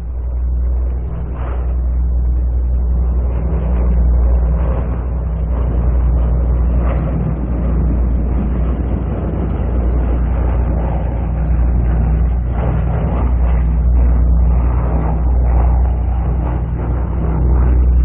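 Bristol Beaufighter twin-engined aircraft flying overhead, its piston engines droning steadily and swelling and fading as it passes and circles. An old wartime field recording, dull with no high end.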